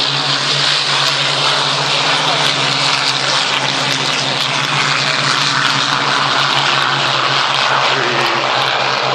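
Supermarine Spitfire fighters' V12 piston engines running at taxiing power: a steady, loud propeller-engine sound with a constant low hum underneath.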